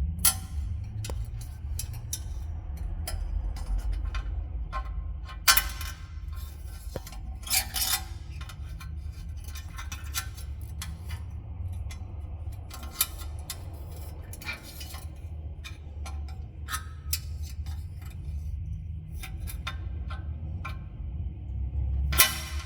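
Irregular metallic clicks, clinks and short scrapes over a steady low hum, with a few louder strikes at about 5 s, 8 s and near the end.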